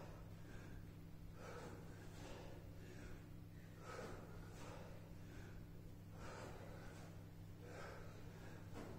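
A person breathing hard from exertion, with audible puffs in and out in a steady rhythm about every second, over a low steady electrical hum.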